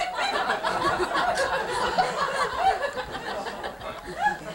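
Live audience laughing, many voices chuckling and tittering over one another, thinning out toward the end.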